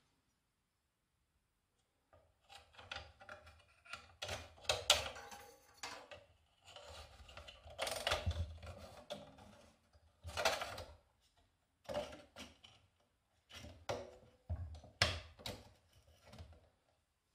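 Hand-handling noise from fitting a steel blade onto a Scheppach MSB1100 portable metal band saw: irregular rubbing, scraping and clicking of the blade against the wheels and plastic housing, with dull knocks of the saw body on the wooden bench. It starts about two seconds in and comes in uneven bursts.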